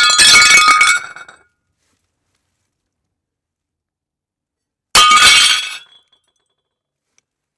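Glass breaking twice, about five seconds apart: each a sudden loud crash that rings and dies away within about a second and a half.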